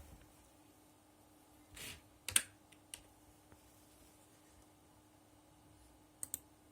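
A few sharp clicks at a computer over a faint steady hum: a short rustle about two seconds in, then a loud pair of clicks, one more click about a second later, and a quick double click near the end.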